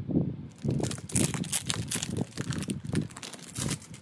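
Clear plastic packaging sleeve crinkling irregularly as it is handled and a paper brochure is slid out of it, the sharp crackles starting about half a second in.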